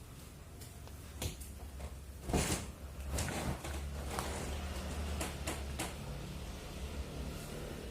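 Sharp AH-AP12MHL air conditioner running in clean mode: a low steady hum, with scattered small clicks and knocks and one louder knock about two and a half seconds in.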